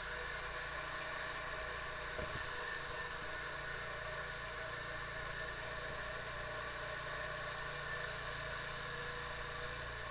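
Quad bike (ATV) engine running steadily as it drives through a flooded mud track, with a steady hiss above it.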